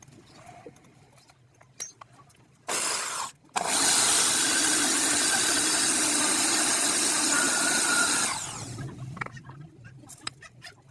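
Handheld electric power tool running in two goes: a short burst just under three seconds in, then a longer run of about four and a half seconds that winds down at the end. Light tool-handling clicks before and after.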